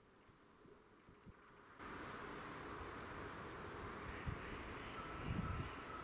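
Hazel grouse decoy whistle being blown: a loud, high, thin whistle held for about a second, then broken into a few short notes, stopping about two seconds in. In the second half, fainter high whistles that slide up and down in pitch.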